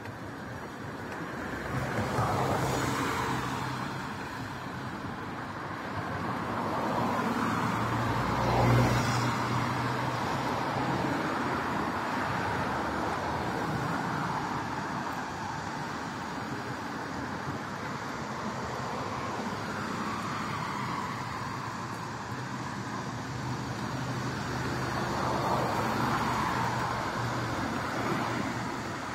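Road traffic on a wide multi-lane city road: a steady wash of tyre and engine noise, with several cars passing close by, each swelling and fading, the loudest about nine seconds in.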